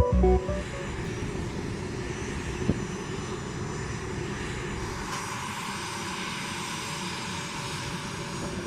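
Jet aircraft engine noise: a steady rushing sound that grows a little brighter about halfway through.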